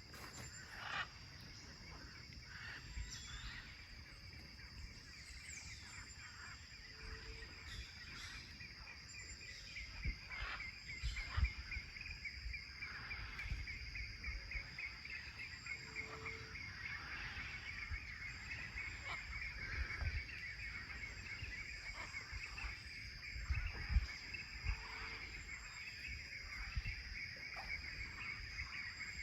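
Rural outdoor ambience: insects trilling steadily, with a few short calls from birds or fowl and scattered low thumps.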